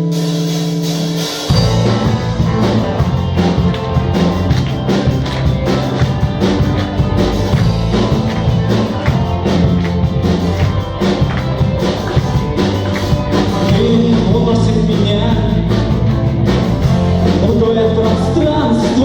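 Rock band playing an instrumental passage between sung verses. A chord is held for about a second and a half, then the full band comes in louder with a steady beat.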